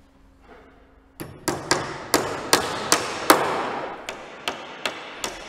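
Hammer driving nails into a timber ridge batten: a quick run of about a dozen sharp strikes starting about a second in, getting lighter toward the end, each with a ringing echo.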